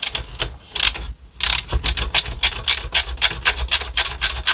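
Ratcheting screwdriver clicking as it is worked back and forth on a screw. A few scattered clicks settle, about a second and a half in, into an even run of rasping ratchet strokes, about four a second.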